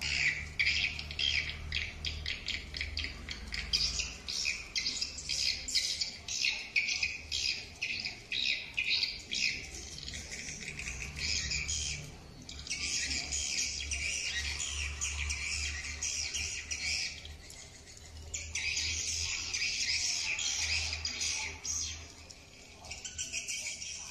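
Recorded swiftlet lure call played through an outdoor SH-300 lure speaker: a rapid run of high chirps and twitters, thickening into denser continuous twittering about halfway through and again near the end, over a low steady hum.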